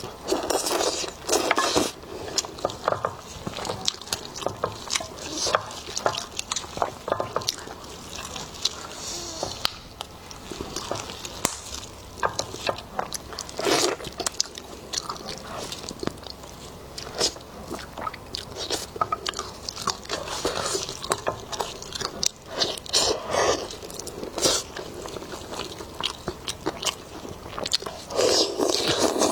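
Close-miked eating: a person biting and chewing lamb ribs, with irregular wet smacks and clicks and a few louder bites.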